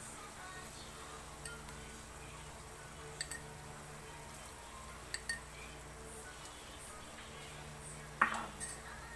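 Metal ladle clinking against the bowl and stainless steel pot while bile is spooned into the meat: a few light clinks, then a louder ringing clink near the end.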